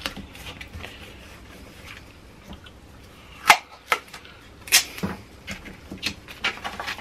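Duct tape and sandpaper being handled while strips of tape are torn and pressed down to hold waterproof sandpaper around an MDF block, with two short, sharp rips about three and a half and five seconds in, and small clicks and rustles after.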